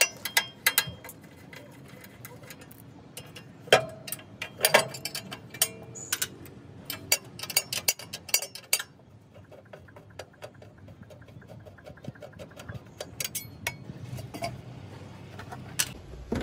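Scattered clicks, taps and knocks of hand work on a JCB 3DX backhoe loader's side compartment cover as its screws are taken out and the cover is lifted off, busiest in the first half and sparser after.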